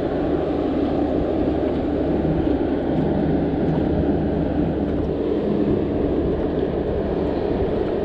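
A steady engine drone with a low hum and a rushing noise that holds even throughout.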